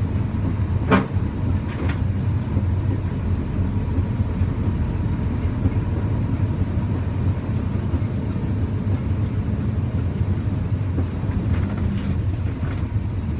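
Truck engine running with a steady low drone, as when driving, with a few brief clicks or knocks about a second in and again near the end.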